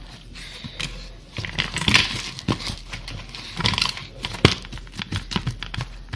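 Slime being kneaded and squished by hand, giving a run of irregular wet clicks and crackling pops as lotion is worked into it.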